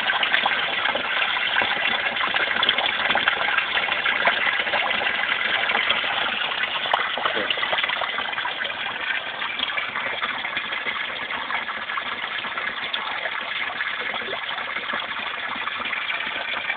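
Steady splashing of a small rock waterfall pouring into a backyard koi pond.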